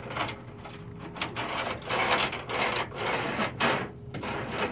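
Rummaging and handling noises: a run of rough scrapes and rattles, getting louder about a second and a half in.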